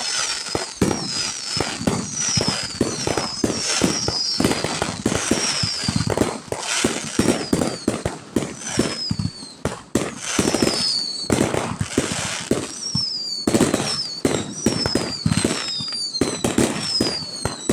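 A fireworks display with dense, rapid bangs and crackling, overlaid throughout by many short high whistles falling in pitch.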